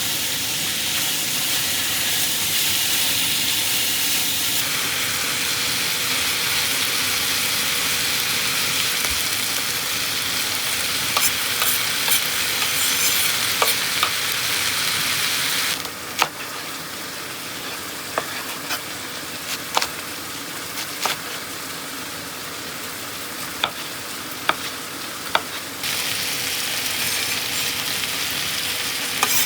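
Food sizzling in a hot frying pan, with sharp taps of a utensil on the pan as it is stirred. The sizzle is quieter for about ten seconds in the middle.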